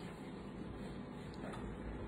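Steady low background hum of room tone, with a faint click about one and a half seconds in.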